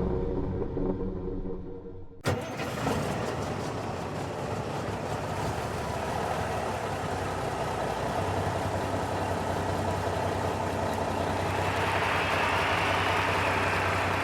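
A car engine sound that cuts in with a sharp click about two seconds in, then runs steadily, growing a little brighter near the end.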